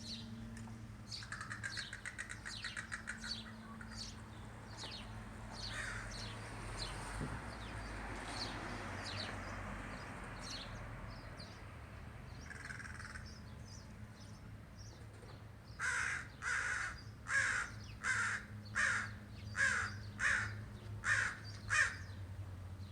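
Crow calling: a fast rattling series of clicks early on, a few scattered short calls, then a run of about nine loud caws, roughly 0.7 s apart, in the last seconds.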